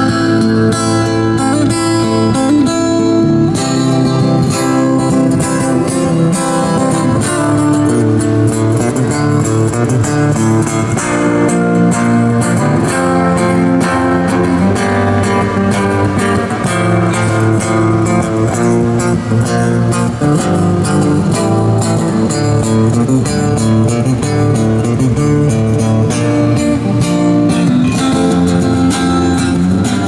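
Acoustic-electric guitar played fingerstyle and amplified through a small Roland amplifier: a continuous instrumental melody over bass notes.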